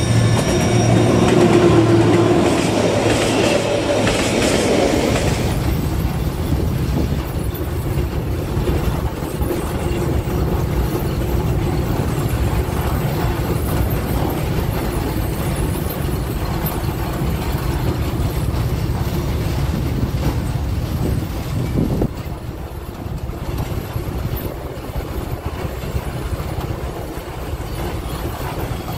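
Diesel freight train passing close by: a locomotive goes by loudly for the first few seconds, then a long string of freight wagons rolls past with a steady rumble on the rails.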